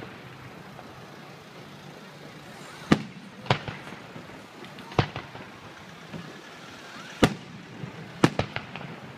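Fireworks going off: after about three seconds of low steady background noise, a series of about six sharp bangs, unevenly spaced, the last two close together near the end.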